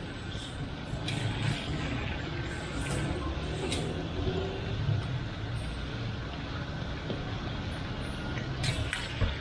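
Beef tikka boti sizzling in oil in a karahi as a ladle stirs it, with a few sharp knocks of the ladle on the pan, the last near the end. Under it runs a steady low rumble of street traffic.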